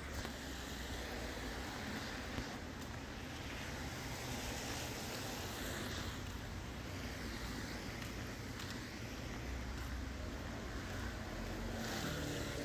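Rainy-day ambience: a steady hiss of rain over a low rumble, the hiss swelling and easing every few seconds.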